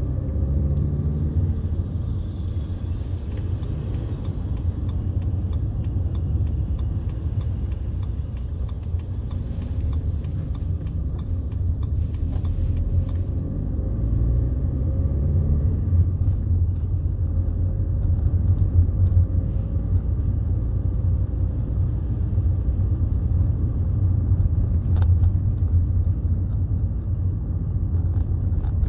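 BMW 320d E91's 2.0-litre four-cylinder turbodiesel running under way, a steady low rumble of engine and road noise heard from inside the car. The engine note climbs twice, near the start and again about halfway through, as the car accelerates.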